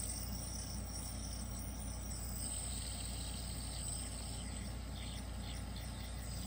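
Fidget spinner's FZ Essentials HC4 hybrid ceramic R188 bearing spinning freely under a tungsten head, a faint, steady high whir over low room hum. The bearing is running smooth and long-spinning.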